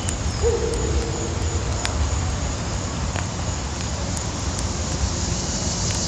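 An owl hoots once, a held call starting about half a second in, over a crackling campfire with sharp pops now and then and crickets chirping steadily.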